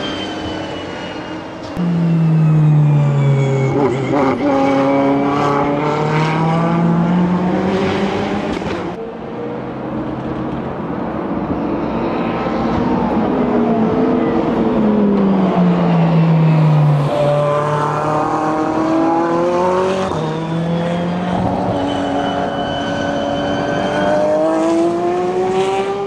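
GTE race car engines at racing speed with no commentary. The note falls as a car brakes and shifts down, then climbs again through a series of upshifts under full throttle, and this happens twice.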